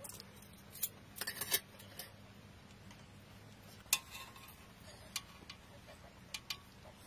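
Scattered light clinks and taps of a spoon and spatula against steel bowls and a serving dish, a quick cluster about a second in and single ones every second or so after, over a faint steady low hum.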